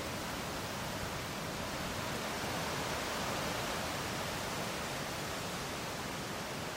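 Strong wind in trees, rustling fresh leaves and branches as a steady hiss that swells slightly with a gust around the middle.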